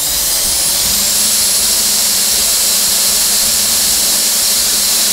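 500 W DC CNC spindle motor running free with no load, held in the hand. It speeds up over about the first second, then holds a loud, steady, high-pitched whine at full speed.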